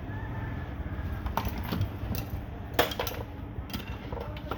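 Scattered light clicks and clinks, with a sharper knock nearly three seconds in, over a low steady rumble.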